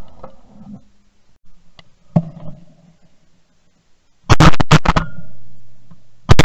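Shotgun blasts heard from the gun itself as pheasants are shot at: one sharp report about two seconds in, then a quick run of several loud blasts starting about four seconds in, and another loud cluster at the very end.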